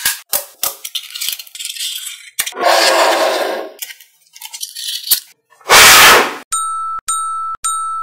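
Small magnetic balls clicking and snapping together in quick taps. Between the clicks come two noisy swooshing effects, then a quick run of short bell-like dings about two a second near the end.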